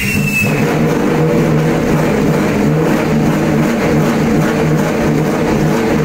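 The March 88B Formula 3000 car's 3-litre V8 racing engine has just fired and runs steadily and loudly, with a brief high whine in the first half second.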